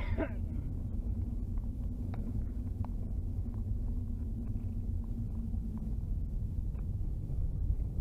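Steady low engine and road rumble heard inside a car's cabin as it drives along an unpaved track. A faint steady hum fades out about six seconds in, and a few light clicks and knocks come through.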